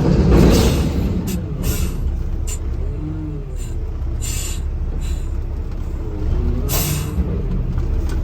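Garbage truck engine running with a steady low rumble under background music, with short hissing bursts now and then.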